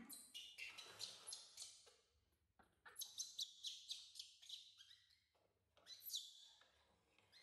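Baby monkey squeaking and chirping in short runs of high-pitched calls, with a falling squeal about six seconds in, the kind of cry a baby monkey makes for its carer's attention.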